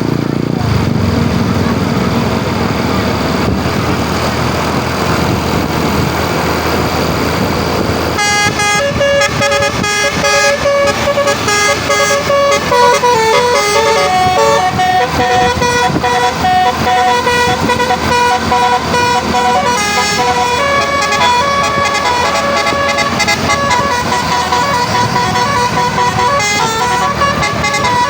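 Telolet bus horn, a multi-tone horn, playing a tune of stepping notes that rise and fall, starting about eight seconds in. Before that there is steady vehicle noise.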